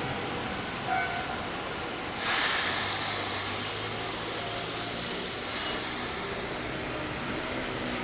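Nagano Electric Railway 8500-series electric train running, with a brief high tone about a second in, a sudden rush of noise just after two seconds, and a low hum for a few seconds after that.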